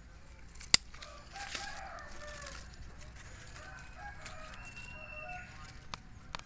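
A sharp scissor snip cutting a thin banyan aerial root about a second in, the loudest sound here, with two softer clicks near the end. Between them a long, drawn-out bird call rises and falls for about four seconds.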